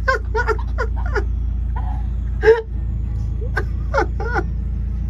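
A woman laughing in short wordless bursts, with one louder outburst about halfway through, over a steady low hum.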